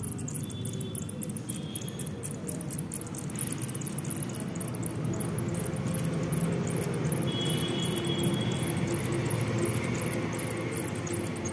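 Two small brushed DC motors spinning the propeller of a homemade ice-cream-stick helicopter, a steady whirring. A fast, regular high-pitched ticking, about three to four a second, runs alongside.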